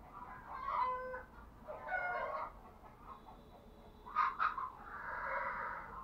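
Spotted dove cooing in a run of repeated phrases: two calls about a second apart, then two short sharp notes and a longer, rougher note near the end. It is the song of a caged decoy dove, used to draw wild doves.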